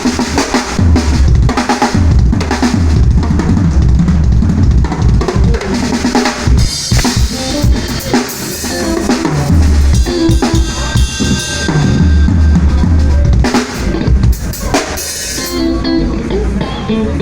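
Drum kit played continuously at a sound check: bass drum, snare and rimshots in a steady groove with cymbal wash.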